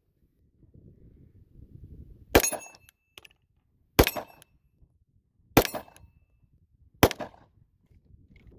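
Four 9mm shots from a Ruger RXM pistol, about a second and a half apart, each a sharp crack. A short metallic ring from the steel plate targets follows some of the shots.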